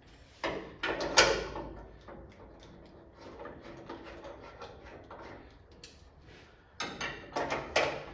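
Metal clinks and rattles as an upper hood latch is handled and bolted to the underside of a 1964 Chevrolet Impala's hood. They come in two clusters of sharp knocks, about half a second to a second and a quarter in and again near the end, with light scraping between.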